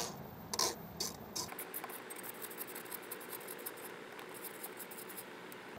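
Socket ratchet with an extension clicking as it backs out a 10 mm mirror-mount bolt: a few separate clicks, then a long run of quick, light ticks.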